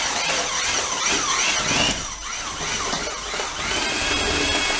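Keyang D-23 handheld mortar mixer running, its paddle churning dusty ready-mix mortar, with repeated high squeaks that rise and fall.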